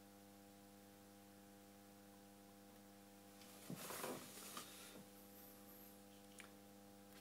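Faint, steady electrical mains hum, a low buzz with a stack of evenly spaced overtones, from the bench electronics. A brief faint rustle about four seconds in.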